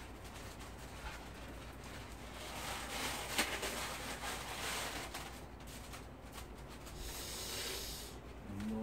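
Plastic bag rustling and crinkling as a small dog noses into it, with one sharp click about three and a half seconds in.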